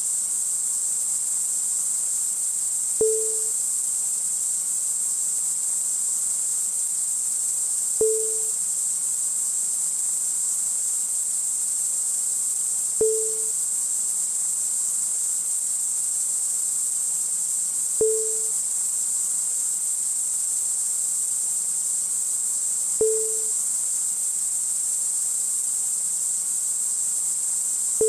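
Thin mechanical bearing texture: a steady high-pitched hiss-like whine, broken every five seconds by a sharp click with a short low blip.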